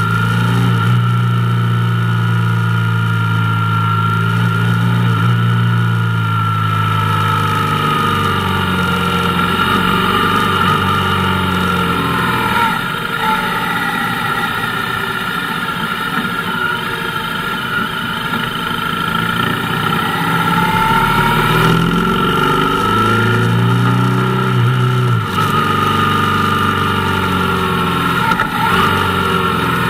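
Motorcycle engine running while riding, its note rising and falling several times as the throttle opens and closes.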